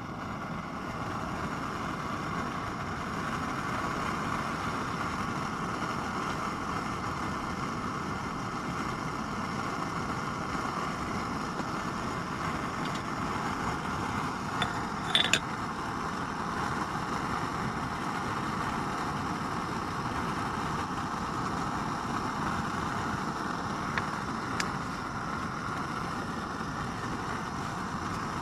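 Pressurized liquid-fuel camp stove burning steadily under a kettle, a constant rushing noise from the burner. A few light metal clinks come about halfway through.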